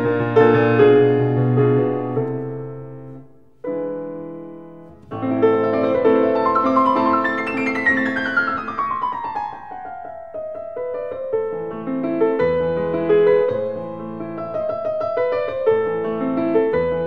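Background piano music, with a brief pause about four seconds in.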